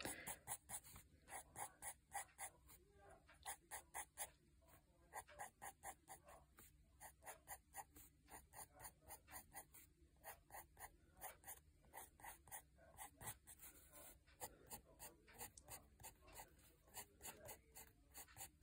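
Pencil on notebook paper making quick, short, faint strokes, about three or four a second, flicking in the eyelashes of a drawn eye.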